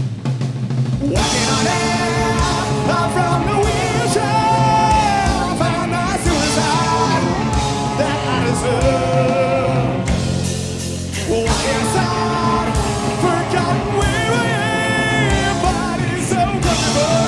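Rock band playing with singing: layered voices holding and sliding between notes over guitar, bass and drums, thinning out briefly about ten seconds in.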